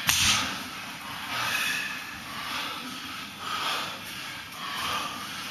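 Sumo wrestlers' heavy breathing, loud rasping breaths about once a second, beginning with a sharp burst, as they hold the crouch before the charge.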